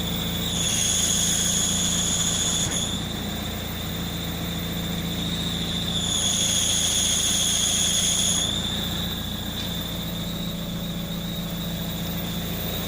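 Renault Scenic 1.9 dTi diesel engine idling with a high, steady whistle that comes with the clutch pedal pressed. Twice, for two to three seconds each time, the whistle gets louder and shriller.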